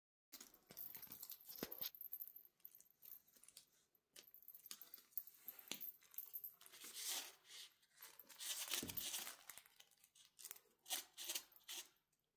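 Cat playing with a toy: irregular rustling and crinkling with scattered light clicks and taps, busiest about two thirds of the way through.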